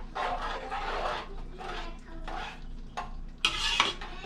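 A spoon stirring macaroni and cheese in a pot, scraping against the pot, with a louder clatter near the end.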